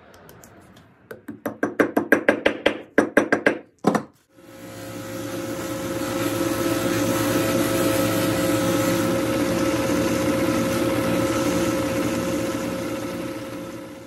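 A quick run of sharp taps, then a drill press spins up and runs steadily with a cloth buffing wheel in its chuck while a walnut knob is polished against the wheel.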